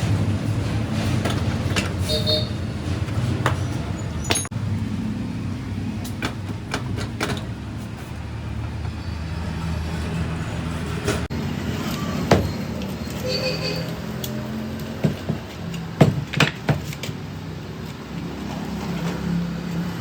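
Steady low hum of motor vehicle engines running, with scattered sharp knocks and clicks, the loudest cluster about fifteen to seventeen seconds in.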